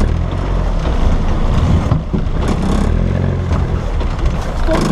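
Land Rover Defender 90's engine running at low revs while it crawls off-road, the engine note shifting slightly as the throttle changes.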